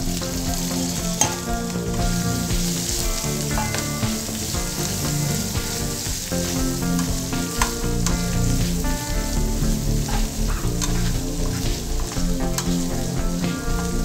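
Bitter gourd pieces, pre-cooked in curd, sizzling and frying in hot oil with a seed-and-red-chilli tempering as they are tipped into the pan and stirred with a steel spatula. Occasional sharp clicks of the spatula against the pan.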